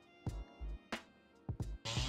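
Background music with a steady drum beat. Near the end a small rotary tool with a grinding wheel starts up and runs with a steady whine.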